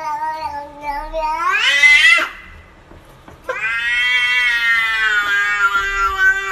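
Domestic cat meowing in two long, drawn-out calls. The first rises in pitch and breaks off about two seconds in. The second starts a second or so later and holds nearly level, sinking slightly toward its end.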